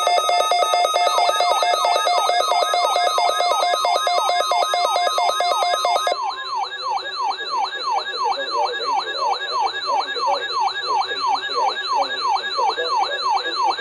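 Emergency weather alert tones: a siren-like falling sweep repeating about two and a half times a second, over steady electronic alert tones that cut off about six seconds in.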